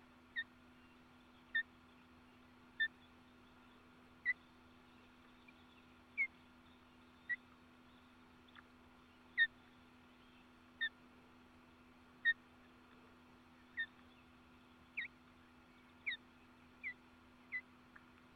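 A bird calling over and over: a short whistled note sliding down in pitch, repeated about every second or so, more than a dozen times, over a faint steady hum.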